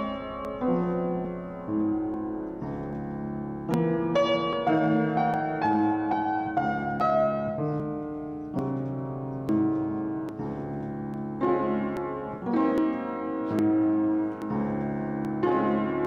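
Kawai upright piano played at a slow, gentle pace: chords struck one after another and left to ring, with short breaks between phrases.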